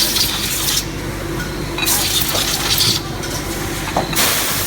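Automatic chamfering machine working: three bursts of hiss, roughly two seconds apart, over a steady machine hum.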